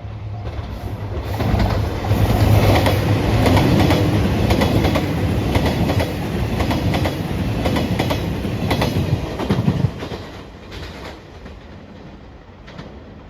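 Train passing close by over a level crossing, its wheels clacking over the rail joints in a quick run of clicks over a steady rumble. It is loudest from about a second and a half in until about ten seconds in, then fades away.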